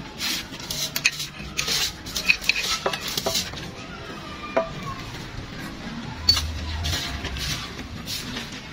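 Metal hand tools clinking and scraping on a motorcycle's valve rocker arm and tappet adjusting screw during a valve clearance adjustment, with scattered clicks and a few short metallic taps that ring briefly.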